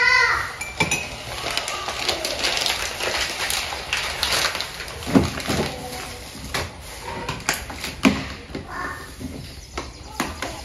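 Scattered knocks and clinks of household clatter, the two loudest about five and eight seconds in, with faint children's voices in the background.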